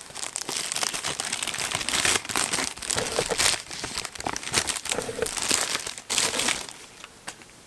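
Packaging crinkling and rustling with many small crackles as a camera lens is unwrapped from its box. The rustle dies away about a second before the end.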